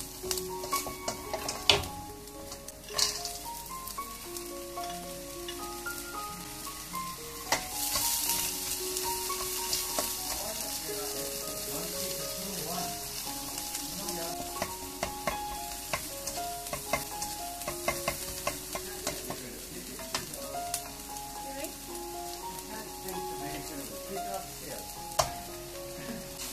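Egg fried rice ingredients sizzling in a hot nonstick wok while being stirred and scraped with a plastic slotted spatula, with a few sharp clicks of the spatula against the pan. The sizzle grows louder about eight seconds in.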